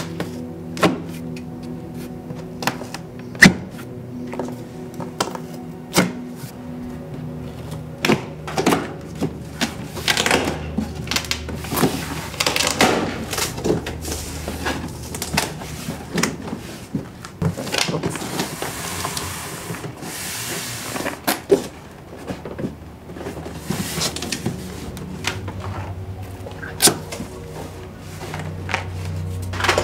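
Background music over the handling of a large cardboard bike box: sharp clicks and knocks as the box top is cut open and the flaps are worked, with a longer stretch of cardboard rustling and scraping past the middle.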